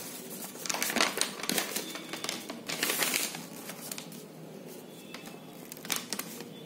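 Paper rustling and crinkling in irregular handling clicks as a folded bill is taken out and unfolded, busiest about halfway through and with a few more crackles near the end.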